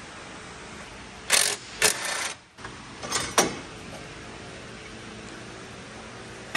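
A cordless impact wrench run in a handful of short bursts, loosening the bolts of a steering box brace on a truck frame: two near the start of the second second, two around two seconds in and two a little past three seconds in.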